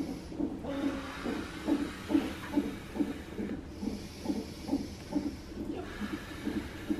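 Fetal heart-rate monitor (CTG Doppler transducer) playing the baby's heartbeat aloud as a rhythmic whooshing pulse, about two and a half beats a second, over a steady hiss.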